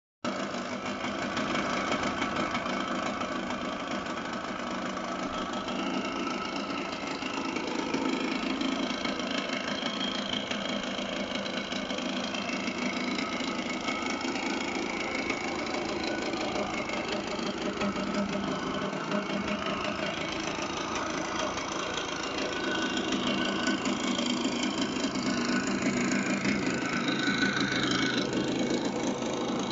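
Garelli Tiger XRD 125's single-cylinder two-stroke engine idling steadily, picking up a little in the last few seconds.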